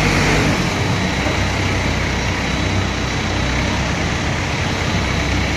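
Tata Hitachi EX200LC Super excavator's diesel engine idling steadily, a low even hum.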